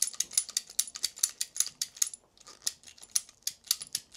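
Ratcheting battery cable cutter clicking rapidly, about six clicks a second with a short pause near the middle, as its handles are pumped to cut through 1/0 copper battery cable.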